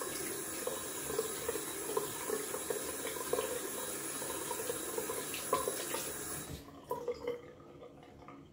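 Bathroom sink tap running while water is splashed on the face for a quick rinse mid-shave. The water stops suddenly after about six and a half seconds, and a few brief faint splashes follow.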